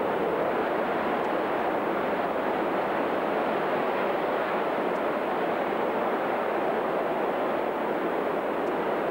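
Steady jet-engine roar from a line of several jets on the runway.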